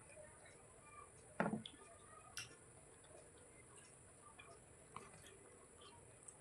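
Eating sounds: scattered soft mouth clicks and smacks, with one louder bite about one and a half seconds in and a sharp click about a second later, over faint steady hiss.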